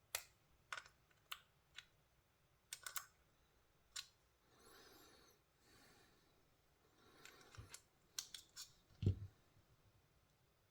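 Faint small clicks and taps of metal parts being handled as a TWOSUN TS328 folding knife's titanium handle scales are pulled apart, with one louder knock about nine seconds in.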